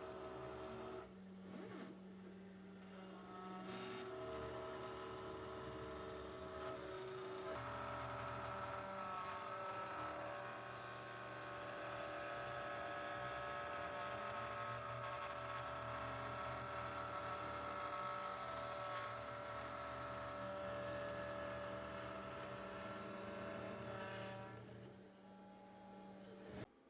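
Small jewellery CNC cutting and engraving machine running: its motors give a steady hum of several held tones that shift pitch a few times as the moves change, then fade and cut off near the end.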